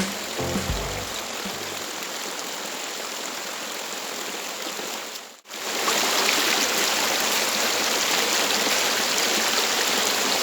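Steady rush of flowing river water. It drops out abruptly for a moment a little over five seconds in, then comes back louder.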